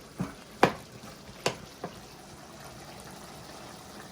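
A metal spoon knocking sharply against a cooking pot four times in the first two seconds, then the meat filling for samosas cooking steadily in the pan with a low sizzle.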